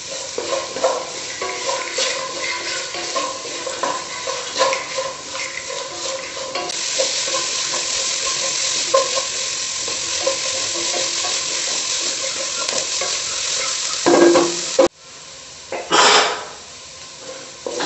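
Sliced shallots frying and sizzling in oil in a non-stick kadai, stirred with a wooden spatula that scrapes and taps against the pan. After about six seconds the sizzle settles into a steady hiss, and near the end there are a couple of louder stirring strokes before the sound cuts off suddenly.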